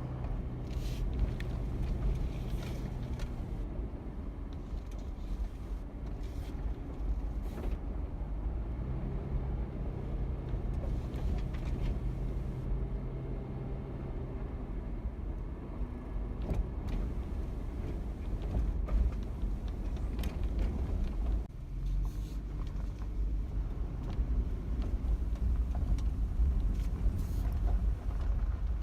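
Vehicle driving along a dry dirt and gravel road: steady low road rumble with the engine running under it, and scattered short knocks and rattles over the bumps.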